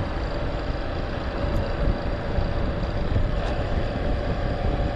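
Honda Super Cub JA07's 110 cc single-cylinder four-stroke engine running while the bike is ridden, under heavy wind noise on the microphone. The engine is making an odd noise that the riders notice, which they later put down to a screw having come loose.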